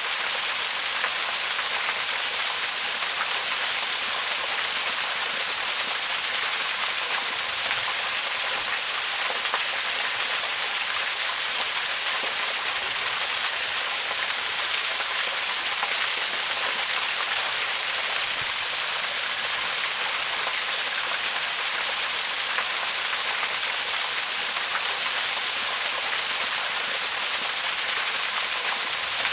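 Waterfall: a steady, unbroken rush of falling water, mostly hiss-like and high, with little low rumble.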